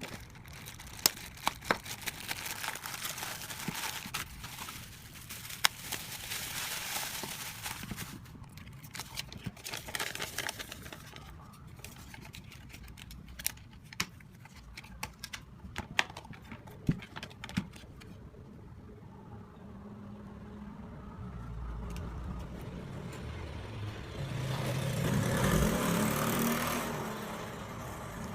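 Plastic packaging of a replacement phone battery crinkling and clicking as it is handled and opened, with many sharp clicks for the first ten seconds or so, then only scattered clicks. Near the end a low rumble swells and fades, like a passing vehicle.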